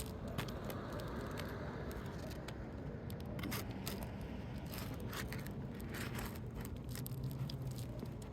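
A Roof Snake shingle-removal tool scraping and prying under asphalt roof shingles, with many short, irregular scrapes and crackles. A low steady hum runs underneath.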